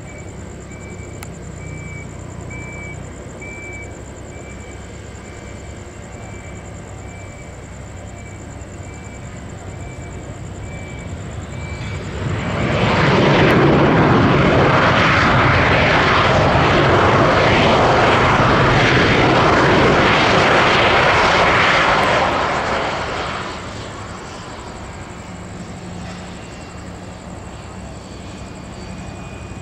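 Twin rear-mounted turbofans of an Embraer ERJ-family regional jet landing: a low steady engine hum, then about twelve seconds in a sudden loud jet roar that holds for about ten seconds and dies away as the jet rolls out on the runway, consistent with reverse thrust after touchdown.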